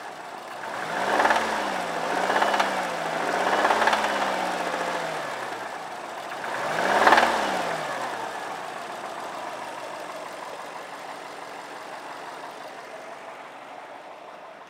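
2002 Subaru WRX's turbocharged flat-four engine revved in short blips, three in quick succession and then one more about seven seconds in, each rising and falling in pitch, before the sound dies away. The engine knocks and rattles, which the owner takes to mean it needs replacing.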